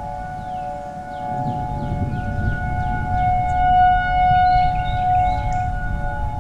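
Outdoor tornado warning siren sounding a steady chord of several tones, swelling louder about halfway through and easing off again, over a low rumble.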